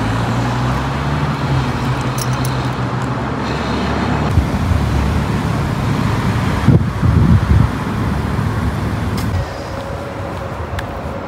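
Outdoor road traffic: a vehicle engine's low hum over a steady wash of traffic noise, easing off in the last couple of seconds.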